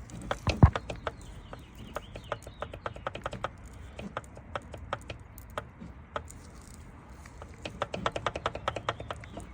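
Front differential stub shaft of a 2005 Dodge Ram 1500 being rocked by hand, giving runs of quick irregular metallic clicks with a louder knock about half a second in. The clicking is play in the shaft, which the owner suspects is a loose stub shaft behind a noise when decelerating.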